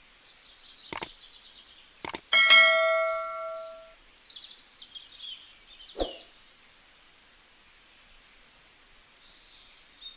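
Small metal kitchen utensils clinking: a couple of sharp taps, then one ringing clang about two and a half seconds in that fades over a second and a half, and a duller knock about six seconds in. Birds chirp faintly behind.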